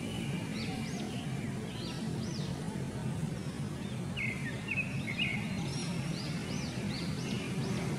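Birds chirping in short notes that rise and fall, repeated every second or so, with a steadier high whistled note about four seconds in, over a steady low background hum.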